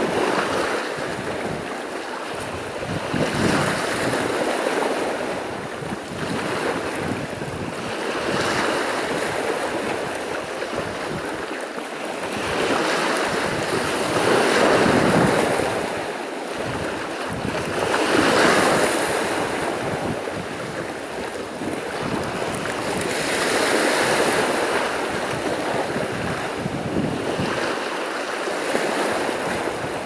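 Sea surf: waves breaking and washing onto the shore, swelling every four to six seconds over a steady rush of water.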